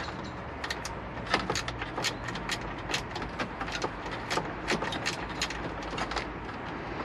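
Light, irregular clicking and ticking, a few times a second, as a screwdriver with a T20 Torx bit is worked to loosen a screw inside a car's dashboard side panel. A low, steady hum runs underneath.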